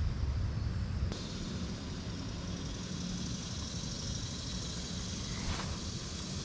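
Steady rushing hiss of flowing creek water. Low wind rumble on the microphone for about the first second, ending with a click.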